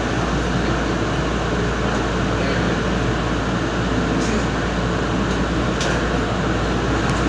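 Nippon Sharyo light-rail car running steadily along street track, heard from inside its cab: a constant rumble of wheels and drive, with a couple of faint clicks a little past halfway.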